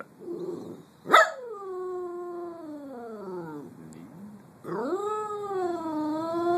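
Cockapoo (cocker spaniel and poodle mix) howling in two long howls. The first starts sharply about a second in and slides steadily down in pitch. The second begins about a second after the first ends, rising and then wavering.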